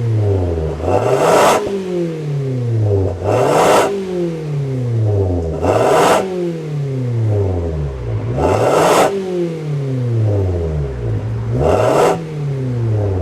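Toyota Avanza 1.5's four-cylinder engine and aftermarket exhaust with a DTM-style tip, blipped up five times. Each rev climbs quickly and falls slowly back toward idle, and it settles to a steady idle near the end.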